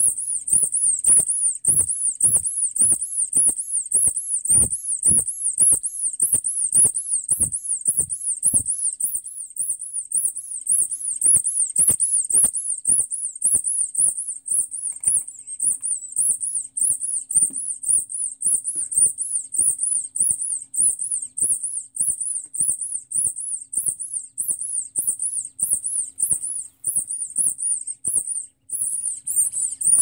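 Rubber Pinocchio squeaky doll squeezed over and over by hand, giving a quick run of high, wavering squeaks about three a second.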